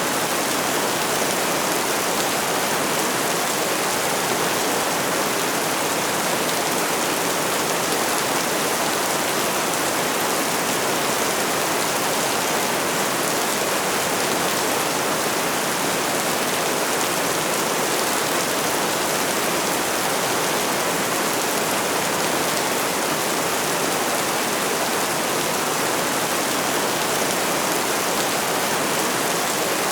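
Steady rainfall, an even, unbroken wash of falling rain with no single drops or other sounds standing out.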